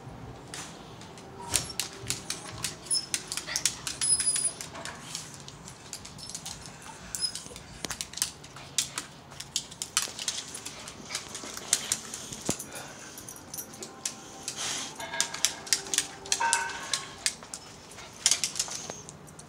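Dog claws clicking and scratching in quick, irregular runs as an excited dog dances about.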